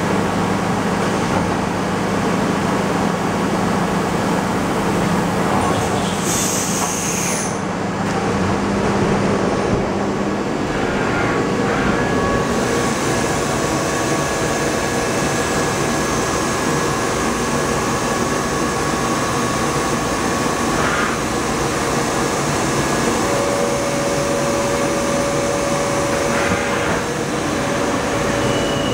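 1996 Kitamura H400C CNC horizontal machining center running under power: a steady mechanical drone and hiss, with faint steady whining tones that come and go.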